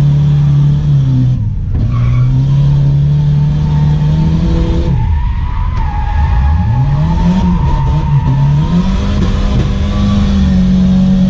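Turbocharged Volvo wagon's four-cylinder engine running hard under load, heard from inside the cabin, with tyres sliding and squealing as the car drifts. The revs drop sharply about five seconds in, then climb back and hold high.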